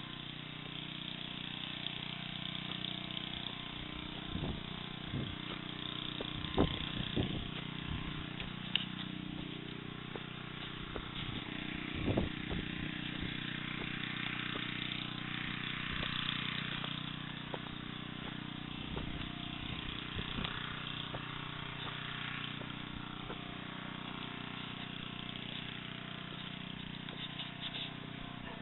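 An engine running steadily at an even pitch, with a few scattered knocks.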